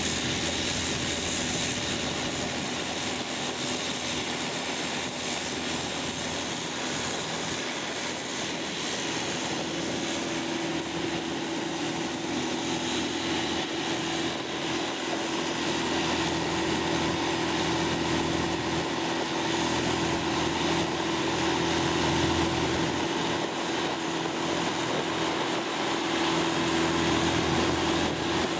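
Longtail boat engine running steadily under way, a continuous drone. A steady hum comes in about nine seconds in and holds.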